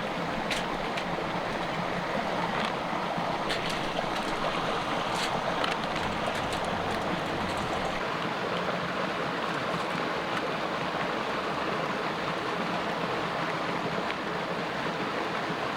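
Mountain creek rushing steadily, with a few scattered small clicks.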